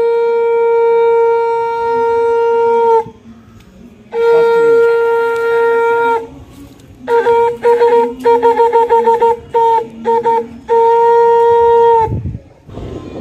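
A singa, a curved horn trumpet, blown in long steady blasts on one note: one held into the first three seconds, another about four seconds in, then a run of short rapid toots, and a last long blast that stops about a second before the end.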